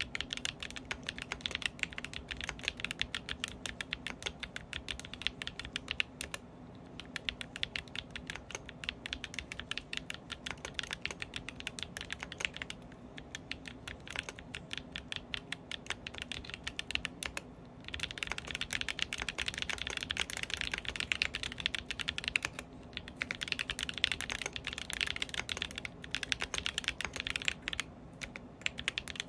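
Foxlab Sandglass Ergo mechanical keyboard with lubed Blu4t switches being typed on fast and continuously, with a few short pauses. The keystrokes get louder and brighter a little past halfway.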